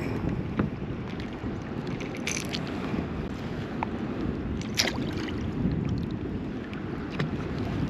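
Wind buffeting the microphone as a steady low rumble, with a few light clicks and ticks from handling, the clearest about two and a half and five seconds in.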